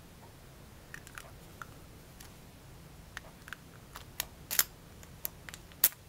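Scattered small metallic clicks and taps from a Best padlock's interchangeable brass core and control key being handled and worked as the core is fitted back into the lock. The clicks are sparse and light, with the sharpest one near the end.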